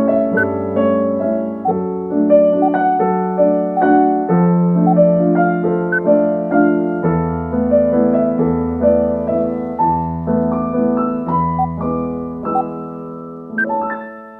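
Background piano music: soft notes and chords played at an even pace, fading out near the end.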